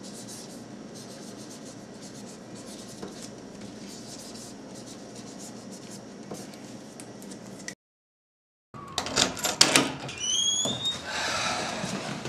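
Faint scratching and rustling of a felt-tip marker writing on a plastic storage bag over a steady hiss. After a second of silence, knocks and clatter with a short rising squeak, a door being opened.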